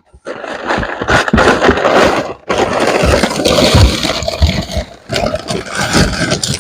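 Packing material rustling and crinkling loudly close to the microphone, with knocks and bumps, as a wrapped item is pulled out of a cardboard box. It pauses briefly about two and a half seconds in.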